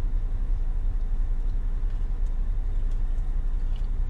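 Steady low rumble of a car's engine running, heard from inside the cabin, with a few faint crunches of chewing a crispy fried chicken sandwich.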